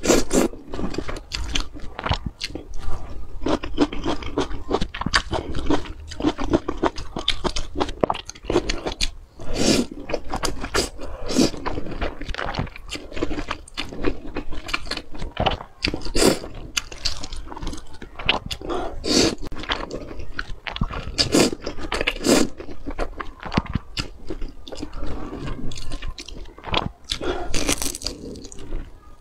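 Close-miked eating of spicy instant noodles: slurping and chewing with many sharp, crunchy bite and mouth sounds, repeated throughout.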